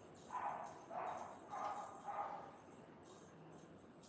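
A pet's short calls, four of them close together in about two seconds, then they stop.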